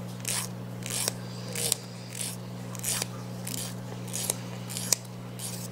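Emery board filing a capuchin monkey's nails: short raspy strokes, about two a second, over a steady low hum.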